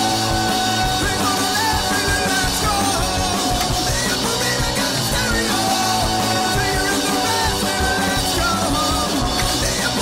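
Rock music with a singer: a steady, full band mix under a wavering vocal line.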